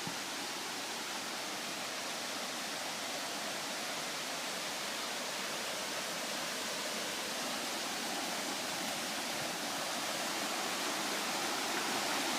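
River water rushing steadily: an even, unbroken hiss of flowing water that grows slightly louder toward the end.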